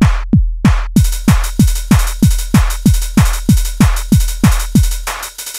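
Electronic background music: a drum-machine kick beating about three times a second, joined by hi-hat-like hits about a second in. It drops away just before the end.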